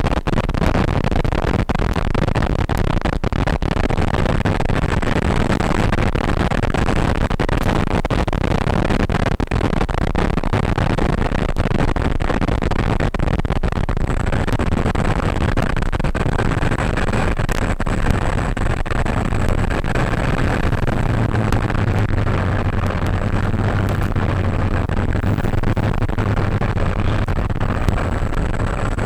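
Steady, loud rushing noise of air and propeller on an RC model airplane's onboard microphone, with light crackles and a thin high whine throughout. A low hum grows steadier in the last third as the plane flies low over the grass.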